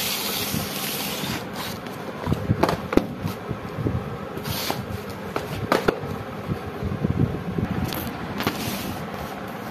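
Cardboard box being handled and slid on a hard floor: rubbing and scraping noises with a few sharp knocks, most of them between two and three seconds in and another near six seconds.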